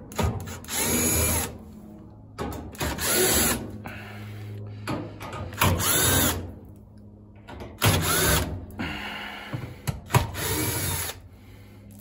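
Cordless drill/driver backing out the dryer's panel screws in about five short runs, the motor spinning up and winding down each time.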